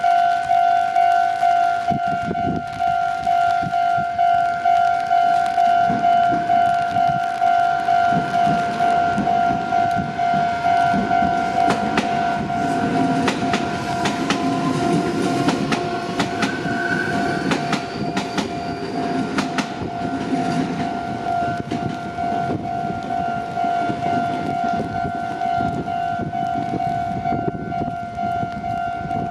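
Japanese level-crossing warning bell ringing its steady, evenly repeating electronic "kan-kan" clang. Between about ten and twenty seconds in, an electric Meitetsu Seto Line train passes over the crossing: a rumble with wheels clicking over rail joints and a faint rising motor whine.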